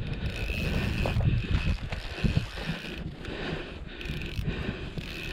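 Spinning reel on a short ice-fishing rod being cranked to reel in line, with wind rumbling on the microphone.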